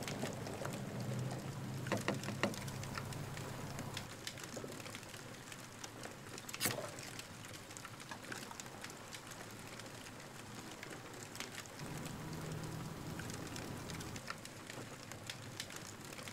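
Light clicks and knocks of coffee gear being handled on a plastic table as an AeroPress is loaded with grounds and pressed into a mug, with a few sharper clicks in the first seven seconds over a quiet outdoor background.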